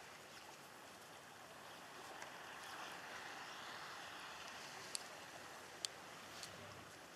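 Faint, steady outdoor ambience: an even wash of noise, with two short sharp clicks about five and six seconds in.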